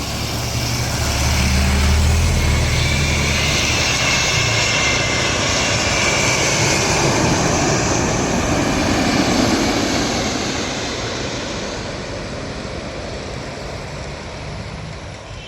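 Emirates Airbus A380 jet engines passing by: a deep rumble and a high whine swell within the first couple of seconds, hold for about eight seconds, then fade away.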